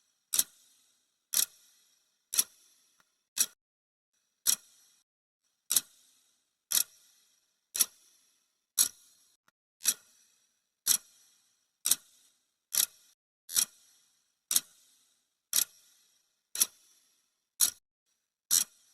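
Clock-style ticking sound effect: one sharp tick about every second, steady throughout, marking the seconds of a countdown timer.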